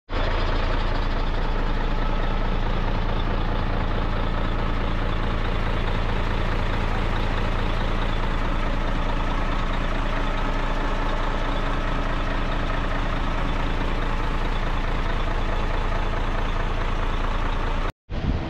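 Truck diesel engine idling steadily, with a deep, even rumble. It cuts off suddenly near the end.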